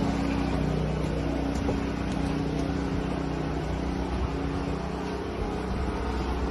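Portable generator's engine running at a steady speed with a constant hum, supplying the house with power.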